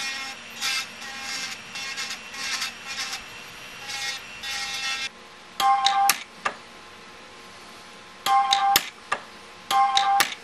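Small rotary tool whining at a fixed pitch as it grinds and cleans up a fresh weld on a titanium ring, broken up for the first five seconds and then run in short separate bursts.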